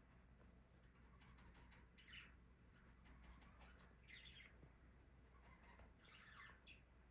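Faint bird chirps: short calls about two seconds, four seconds and six seconds in, over near silence with a steady low hum.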